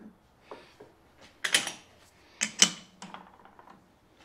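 Metal-on-metal clanks and clinks as a steel shaft is seated in a six-jaw lathe chuck and the jaws are snugged up: a few sharp, briefly ringing knocks, the loudest about a second and a half and two and a half seconds in, with lighter ticks between.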